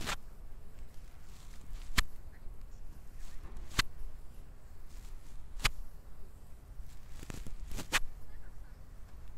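Oiled palms working a bare back in a massage, giving sharp smacks about every two seconds, with two close together near the end. A low steady rumble runs underneath.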